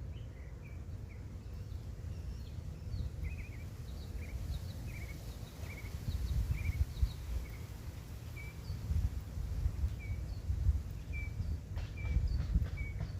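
Steady low outdoor rumble that swells in places, with a bird giving short, repeated chirps over it throughout.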